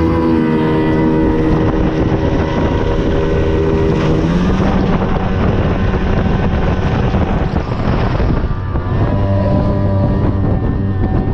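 225 hp outboard motor driving an aluminum boat at speed, with wind buffeting the microphone. The engine note changes about four seconds in and dips briefly near eight seconds before steadying again.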